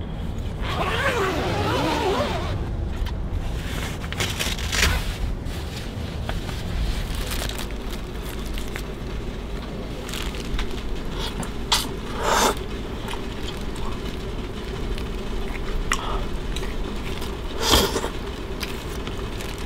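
Steady low rumble of a vehicle on the move, with a few sharp clicks and knocks and a brief voice about a second in.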